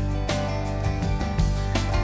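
Background music with strummed guitar and a steady beat, in a country style.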